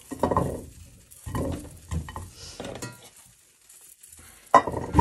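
Cooked cauliflower florets tipped and scraped out of a stainless steel pot into a non-stick pot. The metal pots clatter and knock against each other in several short spells, with the loudest knock near the end.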